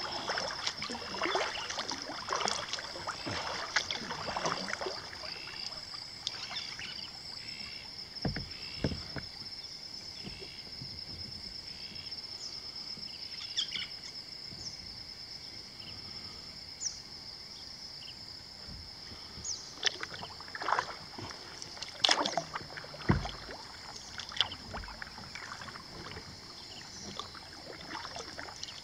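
Kayak paddle strokes dipping and dripping on calm water, clustered in the first few seconds and again about twenty seconds in, with a couple of low knocks. A steady high-pitched drone and scattered short chirps sit underneath.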